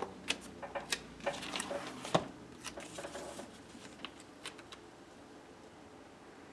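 Paper journal and stickers being handled. Pages and sheets rustle and tap, with a run of light clicks in the first few seconds, the sharpest about two seconds in. After that there are only faint small ticks while a strip is pressed along the page edge.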